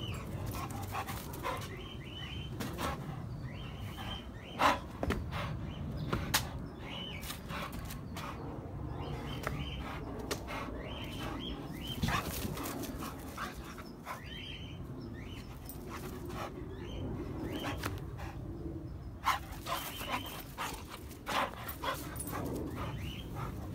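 A dog barking and yipping over and over in short bursts during excited play, with a few sharp, louder barks among them.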